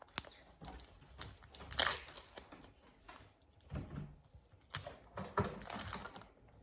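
Scattered clicks, knocks and brief rustles of kitchen items and packaging being handled, the loudest just before two seconds in.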